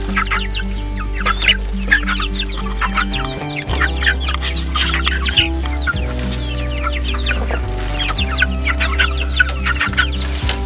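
A flock of broiler chickens clucking, many short calls overlapping, over background music with a steady bass line.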